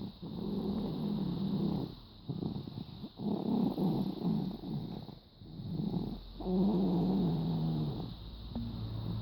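A baby snoring in its sleep: a run of rattling breaths, each a second or two long, with short pauses between them.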